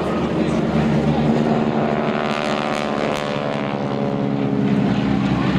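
Radial engines of two Boeing Stearman wingwalking biplanes running as the pair fly past in formation, a continuous propeller-aircraft drone.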